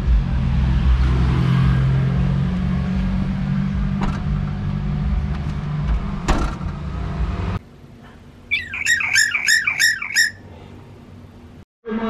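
Low, steady rumble of a car with a sharp knock about six seconds in, fitting the Toyota Avanza's tailgate being pulled shut. Then a bird gives a quick run of about six harsh, falling calls.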